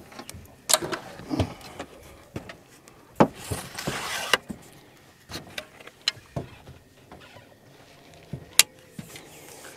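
Knocks, clicks and rattles of a long-handled landing net being picked up and handled in a fishing boat, with a brief rush of noise about three and a half seconds in.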